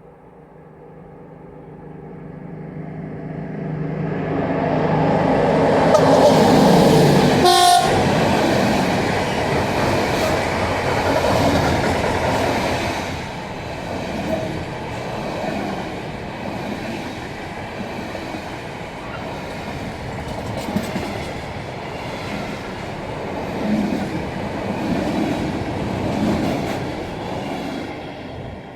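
A train approaching and passing close by: the locomotive's steady hum grows louder over the first several seconds, then the wagons roll past with wheel and rail noise for about twenty seconds before fading away near the end.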